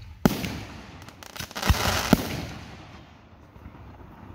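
Aerial fireworks shells bursting overhead: a sharp bang a quarter second in, a run of smaller pops and crackle, and two more bangs about two seconds in, then the noise dies away.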